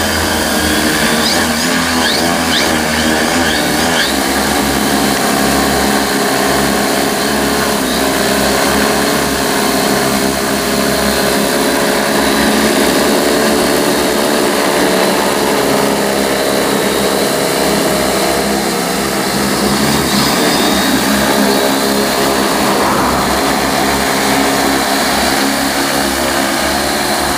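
Large agricultural spraying multirotor drone with 75 cm (30-inch) propellers in flight close by: a loud, steady drone of its rotors, the pitch wavering slightly as the motors adjust.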